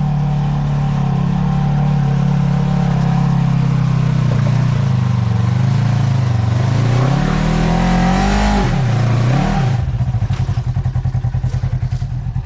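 Side-by-side UTV engine running at a steady idle, then revved up and down several times as a machine works up a rocky climb, settling into a fast, pulsing idle near the end.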